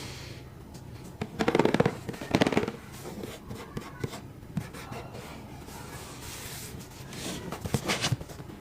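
Crinkling and crackling of a prize's packaging being handled during unboxing: two short bursts of rapid crackles within the first three seconds, and another near the end.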